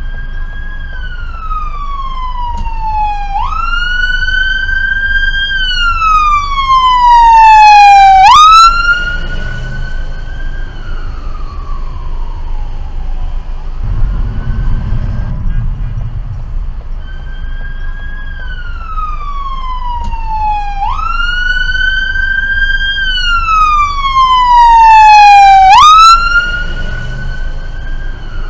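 Police siren on a California Highway Patrol Chevy Tahoe. It wails in slow sweeps: each tone falls over about three seconds, then jumps sharply back up. It swells to its loudest twice, about 18 seconds apart, over the low rumble of traffic.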